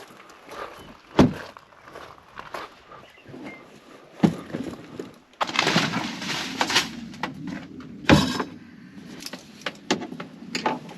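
Handling noises: three sharp thumps, about a second in, about four seconds in and about eight seconds in, with a stretch of rustling and scraping in between.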